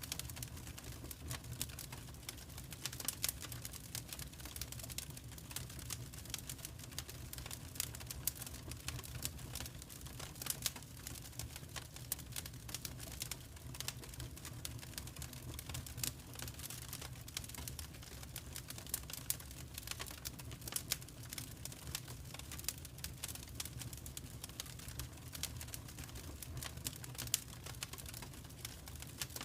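Wood fire burning in a fireplace, crackling with frequent irregular sharp pops over a low steady rumble.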